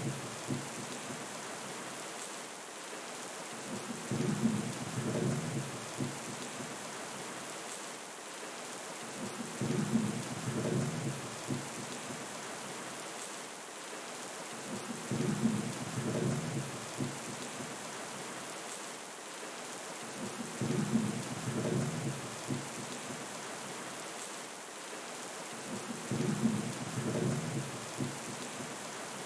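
Steady rain hiss with rolling rumbles of thunder. The rumbles swell up about every five and a half seconds, five times, at strikingly even intervals.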